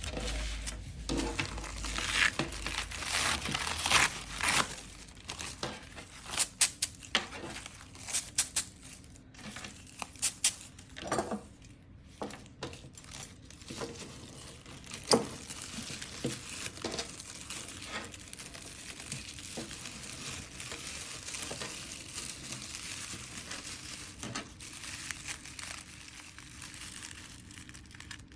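Honeycomb corrugated paper wrap crinkling and rustling as it is handled, with irregular sharp crackles through the first half, then a softer, steady rustle.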